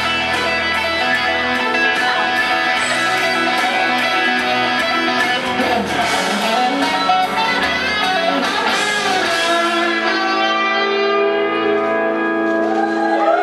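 Electric guitar played through an amplifier: a run of quick lead notes, settling about ten seconds in into a held chord that rings on to the end.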